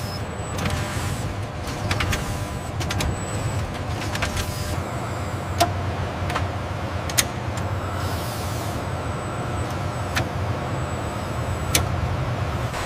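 Assembly-plant ambience: a steady low machinery hum with scattered sharp clicks and knocks.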